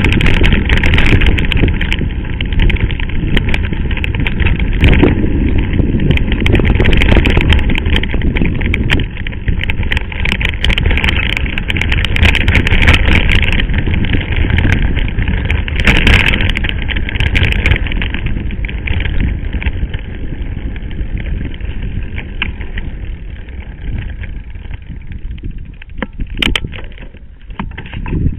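Mountain bike ridden over a rough gravel dirt track: a loud rumble of wind on the microphone, with tyres crunching over stones and the bike and camera mount rattling in many small knocks. It grows quieter over the last few seconds.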